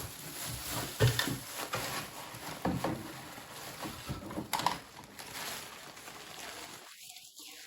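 Rustling and light clicks of parts and packaging being handled, with one sharp knock about a second in; the sound cuts out near the end.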